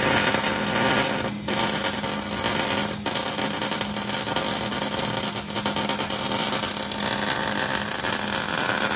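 Electric arc welding on a steel truck frame: a steady crackling hiss from the arc that breaks off for a split second twice, about one and a half and three seconds in.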